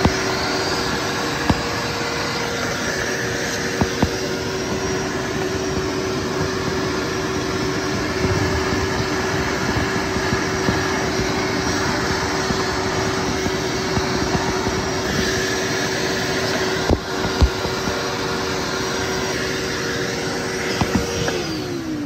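Vacuum cleaner running steadily, sucking water out of a clogged air-conditioner condensate drain, with a few light knocks. Near the end its motor winds down with a falling pitch.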